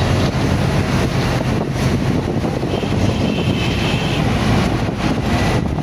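Steady, loud rumble of street traffic, with a faint high tone briefly about halfway through.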